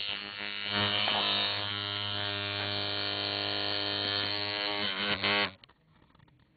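Dual-coil tattoo machine (Workhouse Bronze Gun II) running with a steady electric buzz. The pitch wavers just before it cuts off about five and a half seconds in.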